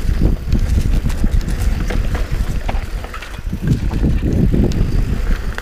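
Mountain bike riding fast down a dirt singletrack, heard from a chest-mounted camera: wind buffeting the microphone over tyre noise, with many short clicks and rattles from the bike and brush brushing past.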